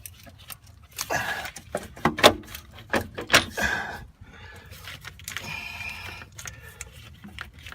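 Sharp clicks and knocks of metal parts and tools being handled while working the starter motor loose, followed a few seconds in by a brief scraping rasp.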